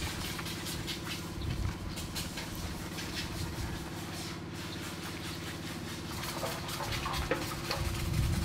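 A motor running steadily with an even hum, with faint scattered clicks over it.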